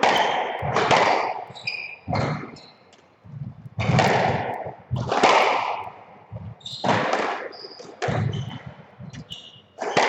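Squash rally: the ball cracking off rackets and the court walls about once every second or so, each hit ringing on in the court. Short high squeaks of shoes on the wooden floor come between the hits.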